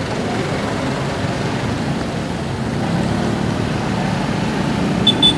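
Slow, congested road traffic: a steady mix of car, motorcycle and heavy-vehicle engines idling and creeping. Near the end come three short, high-pitched toots in quick succession.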